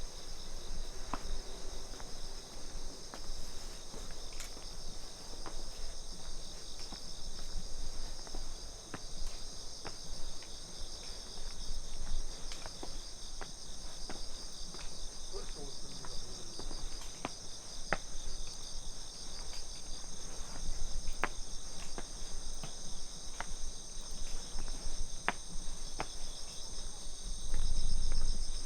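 Steady chorus of crickets and other autumn insects singing in high, continuous bands. Over it come short, sharp footstep taps about every second or two, and a low rumble near the end.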